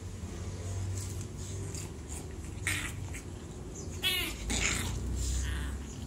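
Two English bulldog puppies play-fighting, with a few short rough noises and a brief, high, wavering yelp about four seconds in.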